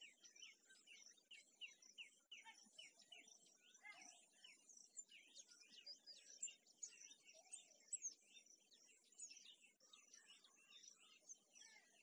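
Faint chorus of small birds chirping, many short, quick calls overlapping without a break.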